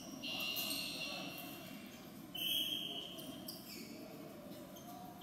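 Basketball gym noise during a game: a low murmur of voices echoing in the large hall, with a couple of faint knocks. A high steady tone runs for about two seconds from near the start, and a shorter, louder one comes just past the middle.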